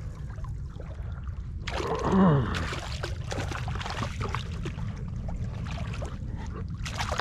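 A small bonefish splashing and flopping in ankle-deep water as it is hand-lined onto the shallow sand edge. The splashing starts about two seconds in, with a short falling-pitched sound at that point as the loudest moment, over a steady low rumble.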